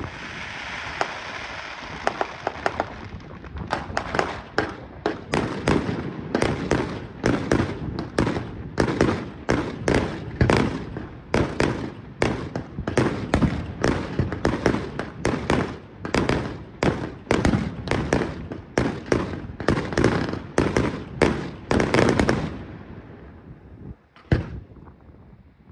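Professional fireworks display: a hiss of launching effects for the first few seconds, then a rapid, steady barrage of firework launches and bursts, two or three bangs a second. The barrage stops about 22 seconds in, leaving one last bang near the end.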